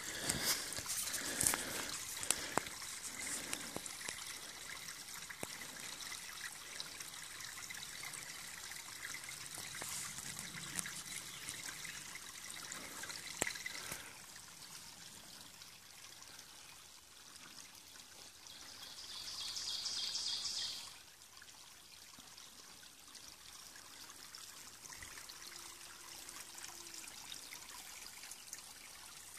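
Overflow water from a spring trickling along a shallow channel of mud and gravel: a faint, steady splashing hiss. The spring is overflowing because the pipe's valve is off. About two-thirds of the way through, the hiss turns louder for about two seconds.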